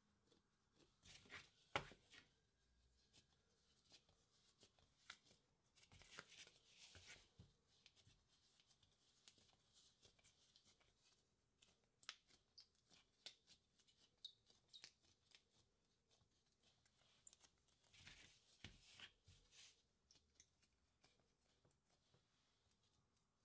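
Faint soft rubbing and patting of hands rolling baguette dough on a floured wooden board, coming in short clusters with quiet between and a sharper tap about two seconds in.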